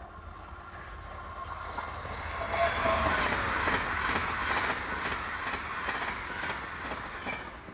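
A train passing at speed along the track. The rumble swells to a peak about three seconds in and fades again, with a rapid run of wheel clacks as the wheels go over the rail joints.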